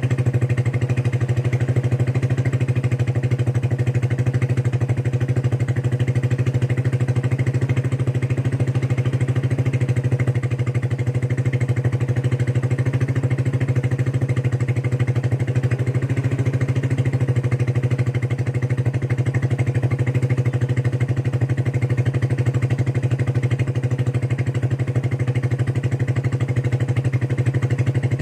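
Motorcycle engine idling steadily through a Vmax conical 4-cut big-tip aftermarket exhaust while warming up from a cold start, at an even pitch with no revs.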